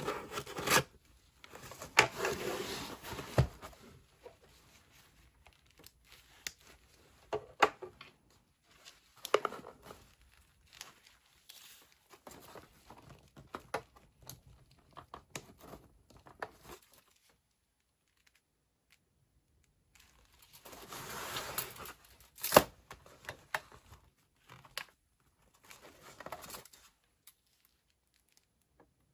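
Folding knife slitting the packing tape of a cardboard shipping box and tearing the cardboard open, followed by scattered rustles and knocks of cardboard being handled while a tape measure is used on the box, with one sharp click about two-thirds of the way through.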